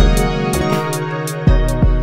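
Suzuki TES 370 synthesizer playing held chords over an electronic beat, with deep kick-drum thumps and regular hi-hat ticks.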